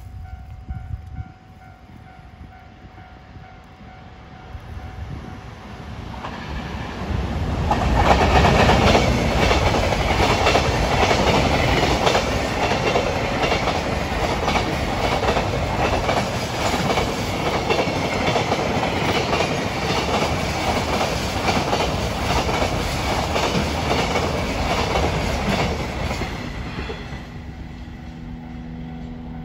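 Container freight train hauled by an EF510 electric locomotive passing close by: the rumble grows over the first several seconds, then a loud, continuous clatter of wagon wheels over the rails for about twenty seconds as the wagons go by, fading near the end as the train moves off.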